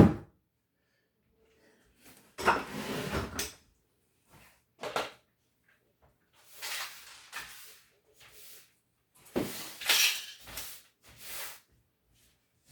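Household objects being handled and moved: a sharp knock, then scattered clunks and scrapes over several seconds.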